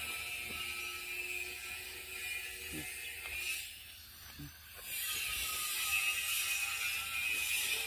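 Steady high-pitched insect chirring, which fades out for about a second and a half near the middle and then comes back.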